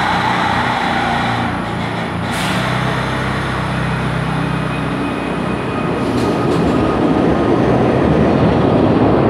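Kawasaki BI-V subway train on the far track starting to pull out, its motors and wheels running louder as it picks up speed over the last few seconds.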